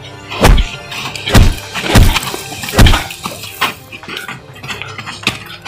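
Background music with punch-and-hit sound effects laid over a fist fight: four heavy thuds in the first three seconds, then lighter hits.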